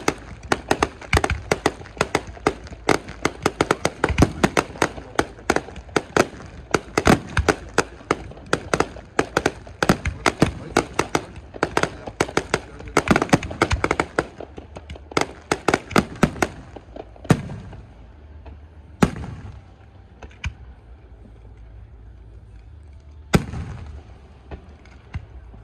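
Fireworks going off in a rapid barrage of sharp bangs and crackles, several a second. After about two-thirds of the way through it thins out to a few single booms.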